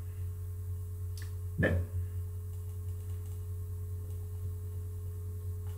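Steady low electrical hum with a thin, steady higher tone over it, from the recording set-up. One brief short noise comes about a second and a half in.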